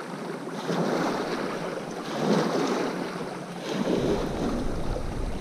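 Small lake waves lapping and splashing against shoreline rocks close to the microphone, coming in repeated surges. Wind starts rumbling on the microphone about four seconds in.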